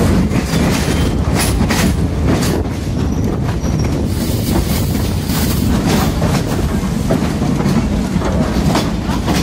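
Train carriage running over jointed track, heard from an open window: a steady rumble with irregular clacks of the wheels over rail joints, as the train slows into a station.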